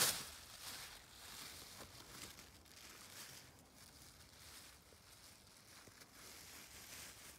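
White plastic bag snapping open once at the start, then crinkling and rustling as it is worked over a mule deer's antlered skull.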